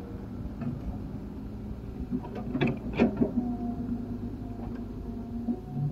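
Excavator's diesel engine running steadily, with two sharp knocks around the middle and a steady higher tone that joins in about halfway through.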